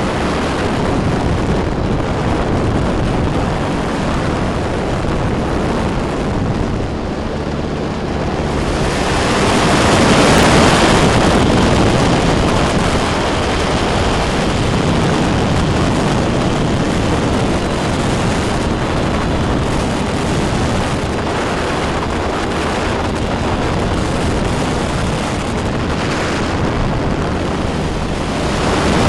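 Weight-shift microlight trike's engine and propeller running steadily, mixed with heavy wind rushing over the microphone. The wind swells louder for a few seconds about ten seconds in.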